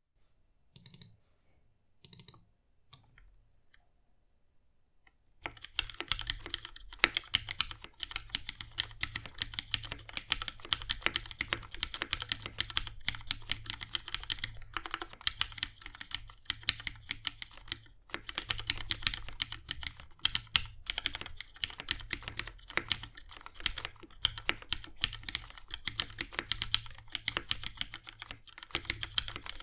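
Typing on a mechanical keyboard with lubed Cherry MX Black linear switches (63.5 g springs) and GMK doubleshot ABS keycaps. A few separate key presses come first, then from about five seconds in a fast, continuous patter of keystrokes.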